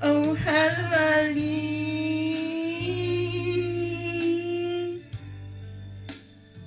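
A woman singing, holding one long steady note for about four and a half seconds before it stops; after that only a faint background remains.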